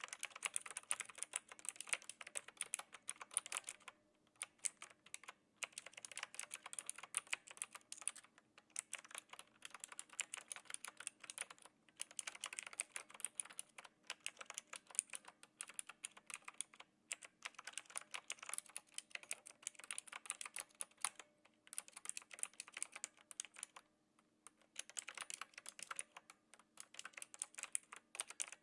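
Typing with a light touch on a Knewkey Rymek typewriter-style mechanical keyboard with clicky blue switches: quick runs of key clicks, broken by brief pauses every few seconds.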